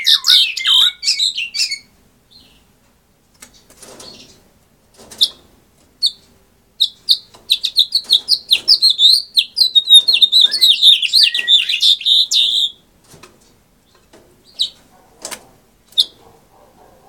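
Male house finch singing. A fast warbling song phrase ends about two seconds in, a few single chirps follow, then comes a long, run-on warble of about six seconds in the middle, and a few short chirps near the end.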